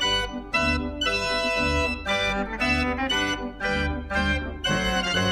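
Gavioli fairground organ playing a jaunty tune: a melody over a regular oom-pah bass and chord accompaniment, about two beats a second.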